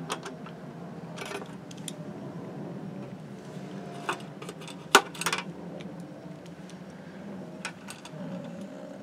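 Small scattered clicks and taps of a screwdriver and screws working against the plastic parts of an oscilloscope, with one sharper click about five seconds in.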